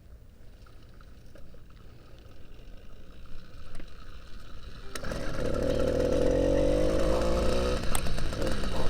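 Quiet with a few faint clicks. About five seconds in, a motorized bicycle's 80cc two-stroke engine comes in abruptly and runs steadily, its pitch easing slightly down.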